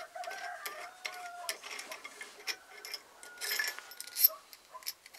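Light metallic clicks and clinks from the steel washers and studs of a homemade collet-style wood-lathe chuck being handled and taken apart, with a short scraping rustle about three and a half seconds in.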